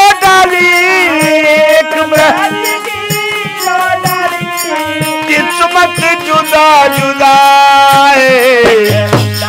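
Harmonium playing an instrumental interlude of a dehati bhajan, with dholak strokes and small hand cymbals keeping the rhythm. A voice briefly sings a word near the end.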